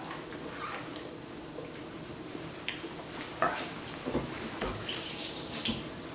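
Kitchen work sounds: a few short knocks of utensils or dishes, with a brief rush of water in the second half.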